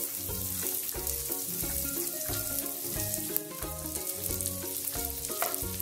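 Chopped onions sizzling in hot oil in a kadai, a dense steady frying hiss.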